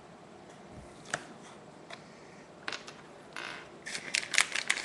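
Small plastic Crazy Bones figures and their packet being handled: a few scattered clicks and short rustles, then a quick run of clicks near the end.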